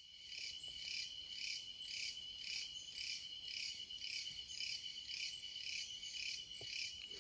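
Night insects chirping in an even rhythm, about two pulses a second, over a steady high-pitched trill.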